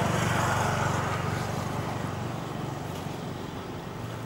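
Motor vehicle engine humming, growing steadily fainter.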